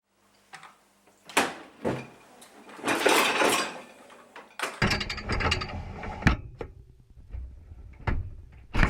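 A series of sharp mechanical clunks and knocks. About three seconds in there is a rushing burst of noise, and from about five seconds in a low rumble runs under further knocks.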